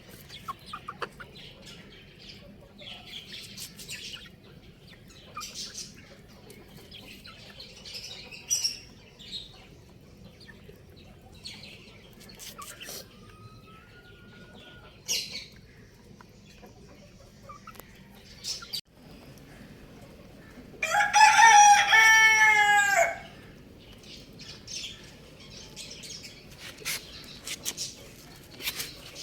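Chickens calling: short, high chick peeps scattered throughout, then a rooster crows once, about three-quarters of the way in. The crow lasts about two seconds, falls slightly in pitch, and is the loudest sound.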